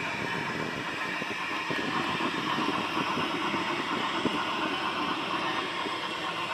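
HO scale model train running along the track, heard from the car carrying the camera: a steady running noise with many small wheel clicks, and one sharper click about four seconds in.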